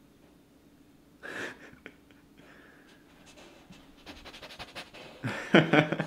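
Black Newfoundland puppy panting close to the microphone, with a few soft clicks. The breathing grows louder in the second half and is loudest near the end.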